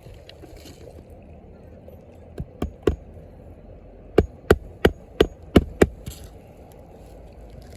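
Hammer driving roofing nails into replacement asphalt shingles: three lighter taps, then six sharp strikes at about three a second.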